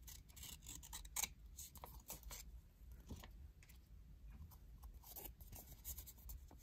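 Scissors snipping through colored origami paper, a handful of faint short cuts in small clusters, trimming off the excess paper.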